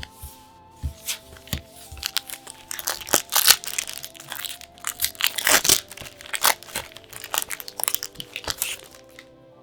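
Packaging being opened by hand: a dense run of crinkling, crunching and tearing that is thickest from about two and a half seconds in until about nine seconds, over soft background music with held notes.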